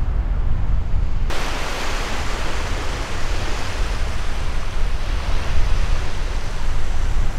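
Wind rumbling on the microphone, joined about a second in by a sudden, steady rushing hiss.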